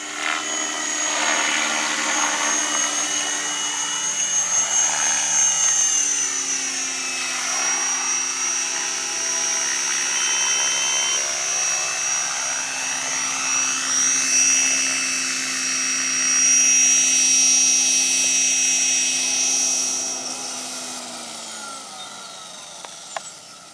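Align T-Rex 550E electric RC helicopter in flight: the buzz of its spinning rotors under a high electric-motor whine, the tone shifting as it passes and turns. About six seconds in, the pitch steps down. Near the end the whine cuts off and the sound falls away.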